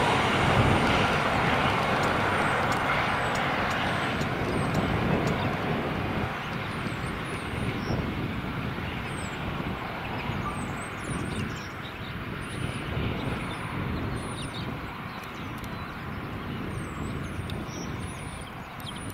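V/Line VLocity diesel multiple unit running away along the track, the drone of its diesel engines and the rumble of its wheels slowly fading as it draws into the distance.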